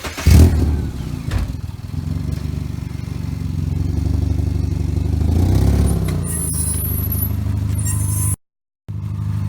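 Car engine starting about half a second in and settling into a steady idle, with a brief rise and fall in revs near the middle and a faint high squeak later on. The sound drops out for a moment near the end.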